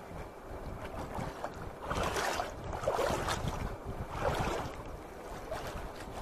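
River water sloshing and splashing around a person wading chest-deep, in a few louder surges, over a low rumble of wind on the microphone.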